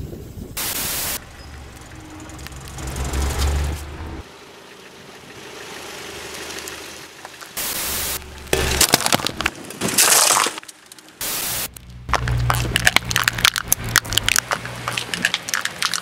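Car tyre rolling over and crushing small objects: a run of cracks and crunches over a low engine rumble, broken by three short, even bursts of hiss.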